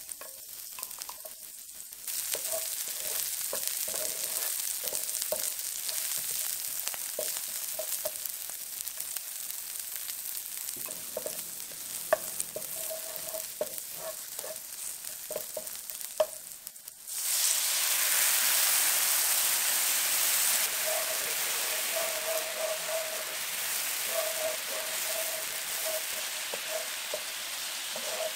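Garlic, ginger and sliced red chilies sizzling in hot oil in a nonstick frying pan, stirred with a wooden utensil that knocks against the pan now and then. About two-thirds of the way through, the sizzle turns suddenly louder and hissier as the liquid sauce of soy sauce, vinegar and chili flakes goes into the hot pan.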